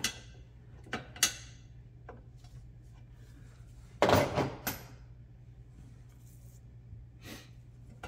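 Metal hand tools clinking and clattering against the fittings inside an Edson steering pedestal as a wrench is tried on a nut. There are a few sharp clinks, then a louder clatter about four seconds in and one more near the end.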